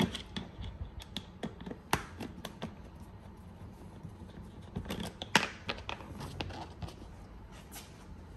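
Hand screwdriver backing T20 Torx screws out of a car bumper's plastic grille: scattered small clicks and taps of tool and screw on plastic, with a quick cluster of clicks about five seconds in.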